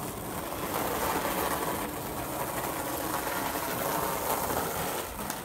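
Skateboard wheels rolling over rough, cracked asphalt: a steady gritty rumble that swells in the middle and eases off near the end.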